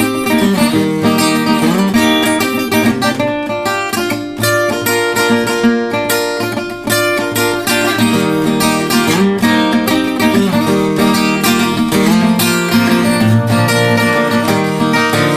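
Background music: an instrumental passage of a country song led by picked acoustic guitar.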